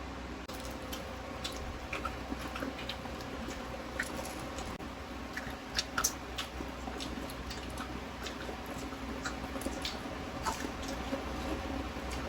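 People eating crispy pata, deep-fried pork knuckle: chewing with many small scattered crackles and clicks.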